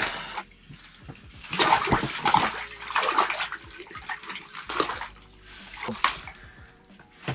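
Water splashing in an ice-fishing hole, in several uneven bursts, as a hooked walleye thrashes and is pulled up by hand.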